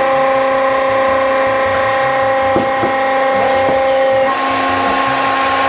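Hydraulic clothing baler running, its pump and motor giving a steady whine of several tones. About four seconds in the tone shifts and turns harsher, as the load on the press changes.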